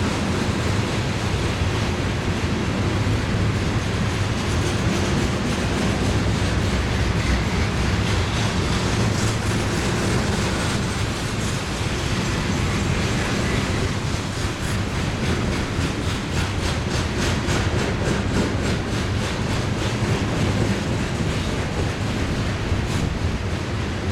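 Freight train of covered garbage gondola cars rolling past at steady speed: a continuous rumble of steel wheels on rail, with a run of quick, evenly spaced clicks over the second half.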